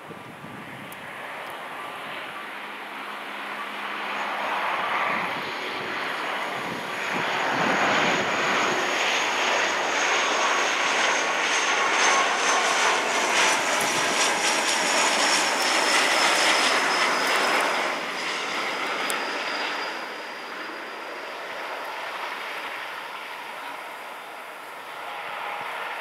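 De Havilland Canada Dash 8 Q400 turboprop airliner flying past on final approach: its two turboprop engines and six-bladed propellers grow louder, run loudest for about ten seconds, then fade. A high whine falls slowly in pitch as it passes.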